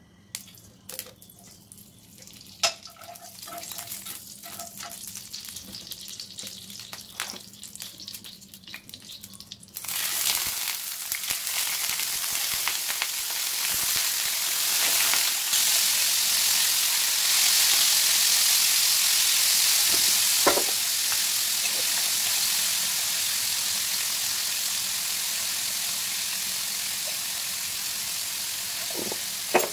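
A little fat crackling faintly in a hot frying pan with a few utensil clicks, then about ten seconds in a loud, steady sizzle as raw chicken drumsticks fry in hot oil, with an occasional knock.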